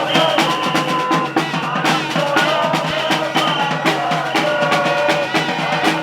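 Music with dense, rapid drumming and sustained high tones held over it.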